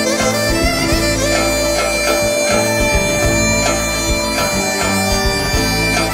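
Albanian wedding dance music: a long-held, wind-instrument-like lead line over a drone and a steady pulsing bass beat.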